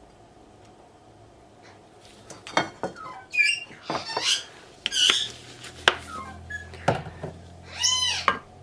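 Pan and utensil clatter in a kitchen, mixed with shrill, squawking calls, starting about two seconds in; a low steady hum comes in about halfway through.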